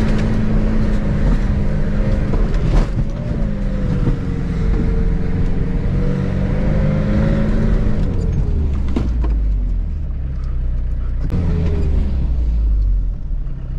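Camper van engine pulling the van up a rough dirt track, heard from inside the cab, with a few sharp knocks from bumps. The engine note holds steady, then drops about eight seconds in.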